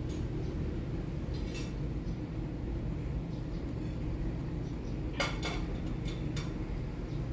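A few light metallic clinks of coins being handled, the clearest about five seconds in, over a steady low background hum.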